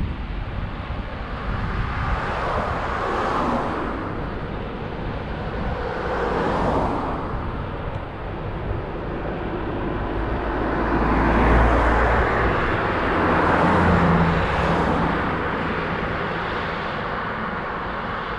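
Road traffic passing: several vehicles go by one after another, each swelling up and fading, the longest and loudest about halfway through, over a steady low rumble.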